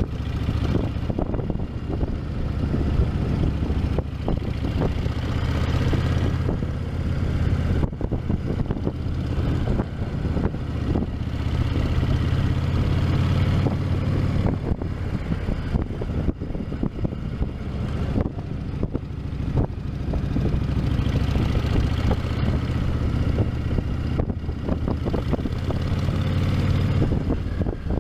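Honda VTX 1300's V-twin engine running through its stock exhaust, a steady low rumble that swells and eases several times.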